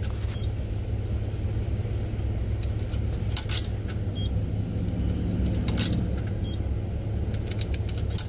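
A car idling, heard from inside the cabin as a steady low rumble, with several brief metallic jingles and clicks over it.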